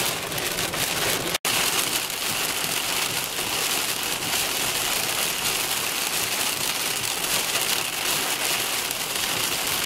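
Heavy rain pelting the car's roof and windshield, heard from inside the moving car as a steady, loud hiss. The sound cuts out for an instant about one and a half seconds in.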